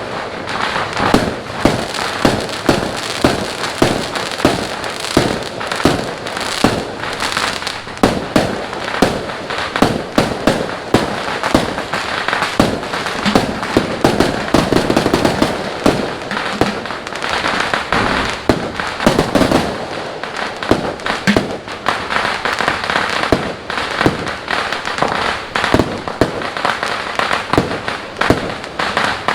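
Fireworks going off in a dense, continuous barrage: many sharp bangs, several a second, over steady crackling.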